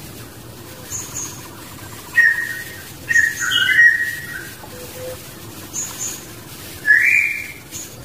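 Birds whistling and chirping: a short whistled note about two seconds in, a run of whistled notes from three to four seconds in, and one more rising-and-falling note near the end, with faint high chirps in between.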